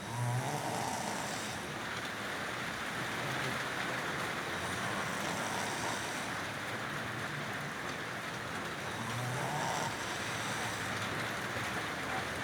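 A sleeping person snoring: three snores about four to five seconds apart, over a steady background hiss.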